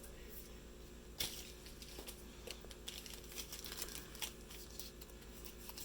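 Faint crinkling and rustling of packaging being handled and opened, with a few light clicks.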